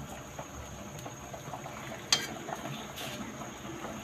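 A ladle stirring soup in an aluminium pot, with small scrapes and ticks and one sharp clink against the pot about two seconds in, over the broth simmering.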